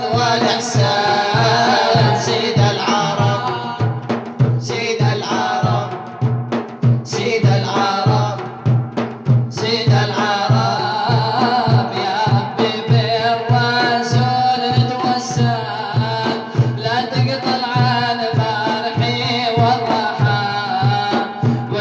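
Male voices singing an Arabic nasheed over a steady hand-drum beat. A few seconds in, the singing thins out to a drum-led break, then the voices return.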